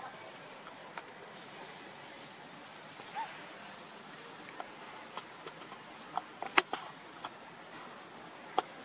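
Forest insects keeping up a steady high-pitched drone, with faint short chirps repeating about once a second. A few sharp clicks and taps come in the second half, the loudest about two-thirds of the way through.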